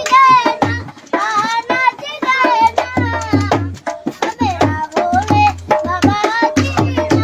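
A boy singing a Garhwali song in a wavering, ornamented melody over a steady drum beat of low thumps and sharp hand-drum strokes.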